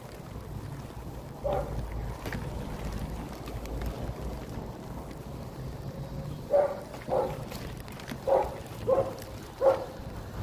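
A dog barking, five short barks in the last third, over low wind noise on the microphone.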